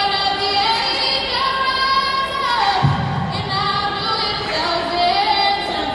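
A young woman sings solo into a microphone, holding long sustained notes. Her pitch slides down about halfway through, followed by a brief low thump.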